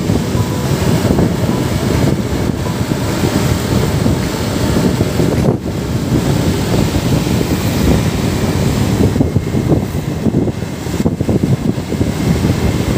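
Wind buffeting the microphone of a moving motorcycle, with the engine and road noise underneath: a loud, steady, fluttering rush with a brief dip about five and a half seconds in.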